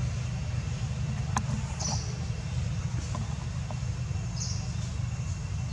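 A steady low rumble, with a short high chirp about two seconds in and another past four seconds, and a faint click just before the first chirp.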